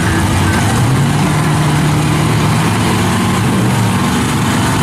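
Engines of drag cars idling loudly and steadily, a hot-rodded 1955 Chevrolet among them.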